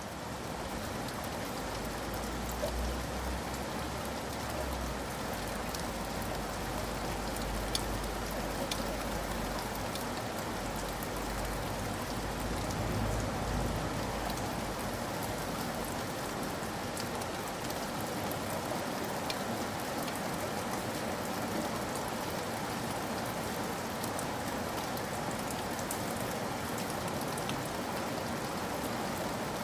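Heavy rain falling steadily on the ground, with scattered single drops hitting louder, and a low rumble underneath for about the first half.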